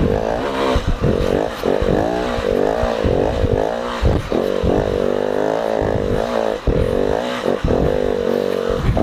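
Dirt bike engine revving hard and unevenly, its pitch rising and falling about twice a second as the throttle is worked up a steep, wet, rooty hill climb while the bike struggles for traction.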